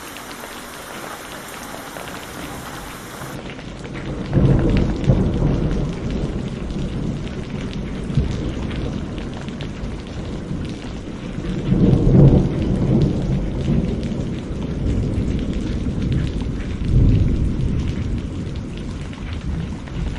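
Thunderstorm: steady rain hiss, joined from about four seconds in by three long rolls of thunder, the loudest near the middle.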